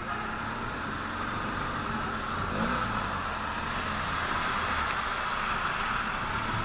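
BMW R 1200 GS flat-twin motorcycle riding along a wet road. Engine, wind and tyre noise blend into one steady rush.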